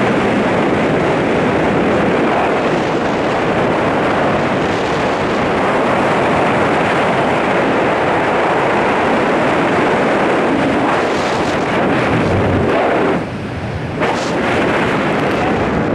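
Wind rushing over a wrist-mounted camera microphone during a tandem parachute descent under an open canopy, a loud steady rush that dips briefly near the end.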